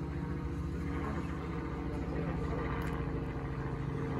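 Robinson R44 helicopter flying overhead: the steady drone of its piston engine with the rapid beat of its two-blade main rotor.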